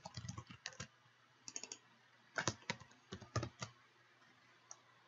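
Computer keyboard typing, quiet, in short bursts of keystrokes about a second apart with brief pauses between.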